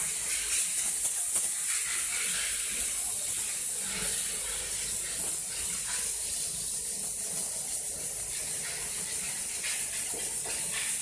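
Steady high-pitched hiss with a faint low hum beneath it, in the cab of a GE CC206 diesel locomotive standing by.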